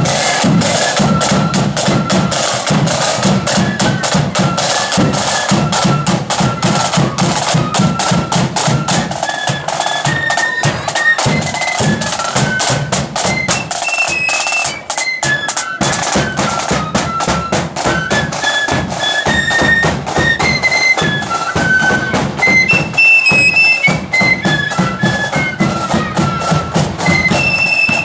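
Marching flute band playing a tune: flutes carrying a high stepping melody over rapid side-drum strokes and a heavy bass drum beat.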